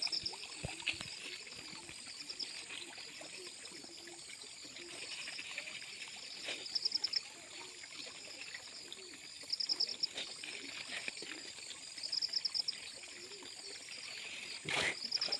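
Pond water sloshing softly as a man wades through it and sweeps a fish landing net, with a louder splash near the end. A high, rapid insect trill repeats several times, a few seconds apart.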